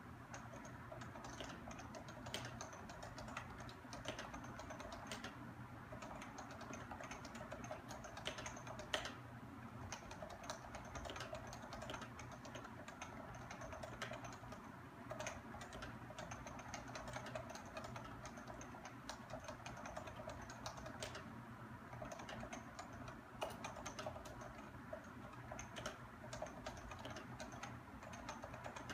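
Continuous fast typing on a keyboard with 45g Topre electrocapacitive switches: a dense, irregular stream of soft keystrokes, with a few heavier strokes standing out.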